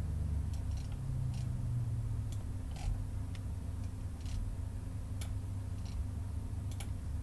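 Scattered, irregular sharp clicks of a computer mouse and keyboard being worked, over a steady low hum.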